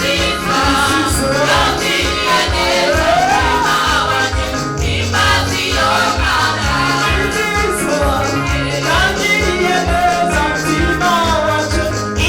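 Gospel praise and worship music: a group of voices singing over a band with a steady, pulsing bass beat.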